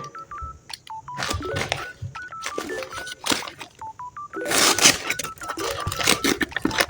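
A quick run of short electronic beeps, like phone keypad tones, stepping between a few pitches, mixed with brief rustling bursts.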